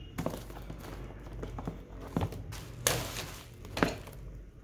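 A shrink-wrapped cardboard box being handled and laid down on a table: several soft knocks and rubbing noises, with two louder knocks about three and four seconds in.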